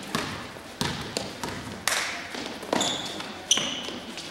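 Basketball being dribbled on a hardwood gym floor, about six bounces roughly every 0.7 seconds, each echoing in the hall, with a couple of short high sneaker squeaks near the end.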